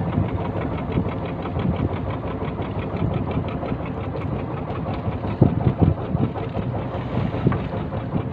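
Fishing boat's engine running steadily at trolling speed, a fast even chugging beat. A few louder thumps come about five to six seconds in.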